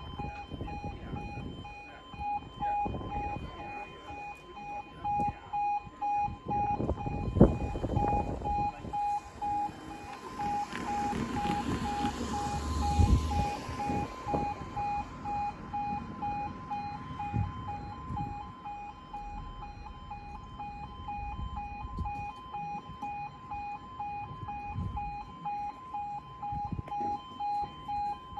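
Railway level crossing audible warning alarm sounding, a steady electronic tone pulsing at about two beeps a second. A broad rushing noise swells and fades midway.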